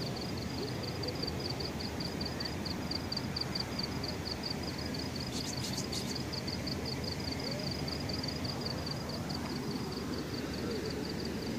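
An insect chirping in a steady high-pitched rhythm, about five pulses a second, over a steady low rumble. A short run of about four sharp clicks comes about halfway through.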